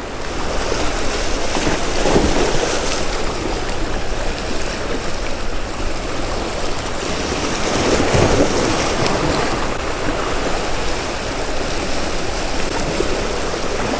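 Sea swell washing over rocks at the water's edge: a steady rush of surf, with louder surges about two seconds in and again around eight seconds.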